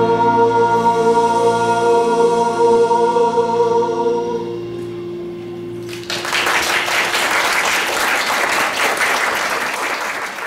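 Mixed-voice a cappella group holding the song's final chord, which dies away over about five seconds. Audience applause breaks out about six seconds in.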